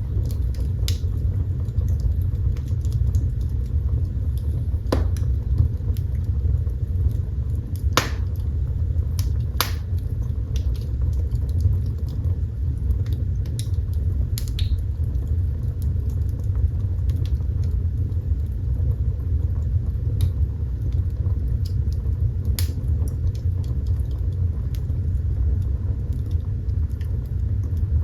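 Wood fire burning in a fireplace: a steady low rumble with scattered crackles and a few louder snaps and pops.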